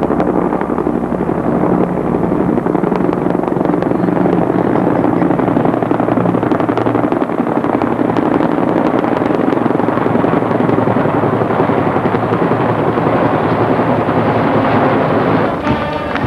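A formation of four helicopters flying overhead, their rotors beating in a steady, loud chop. Near the end it gives way to music.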